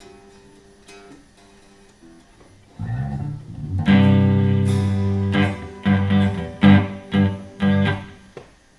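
Guitar playing a song intro: a few quiet picked notes, then a louder chord rings out and is followed by five short chord hits about half a second apart.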